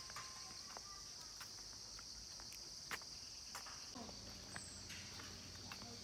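Steady high-pitched insect chorus, with scattered soft footsteps on a brick path.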